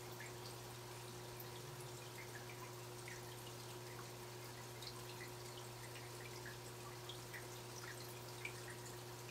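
Faint aquarium water sounds: small irregular drips and bubble plinks over a steady low hum from the tank's external canister filter.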